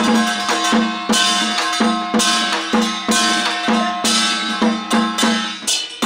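Temple ritual percussion: drums and gongs striking a steady beat about twice a second, over a held pitched tone.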